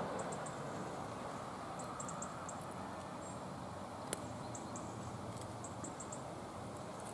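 Steady outdoor background noise with faint high chirps in small clusters, and a single sharp click about four seconds in.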